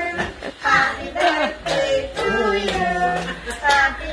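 Upbeat music with a group singing along, children's and women's voices prominent, over a steady beat.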